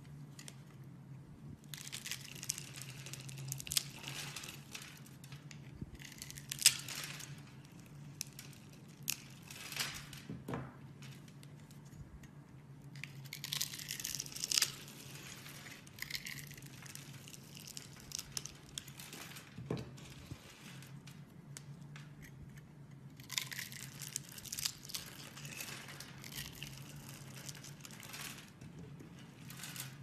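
A knife cuts into bars of soap scored in a fine grid, and small soap cubes break off and scatter with crisp crackling and crunching. This comes in three stretches with pauses between, over a faint steady low hum.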